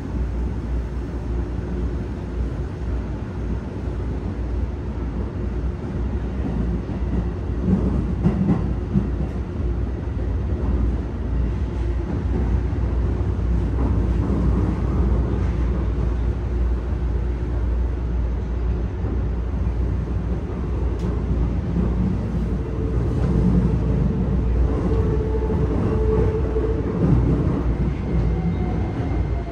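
Running noise inside a Keikyu 1000-series train car with Toyo IGBT-VVVF control: a steady rumble of wheels on track under a constant motor hum. There are a few knocks, the loudest about eight seconds in. Another tone swells in and out late on, and a higher whine comes in near the end.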